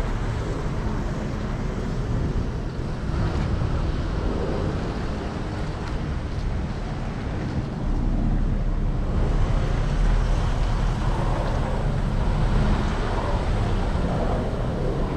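Car engine and tyres at a slow crawl: a steady low rumble with some wind noise on the microphone, a little louder about eight seconds in.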